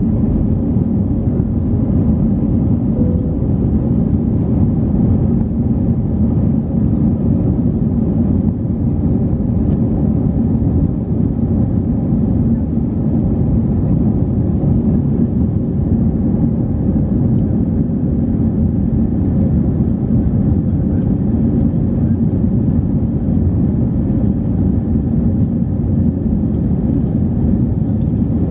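Cabin noise inside an Airbus A321: jet engines and airflow, a steady deep rumble that does not change.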